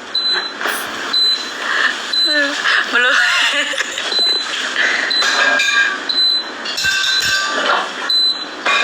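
Short high-pitched electronic beeps repeating roughly once a second at uneven spacing, over a steady background hiss, with a voice heard briefly two to three seconds in.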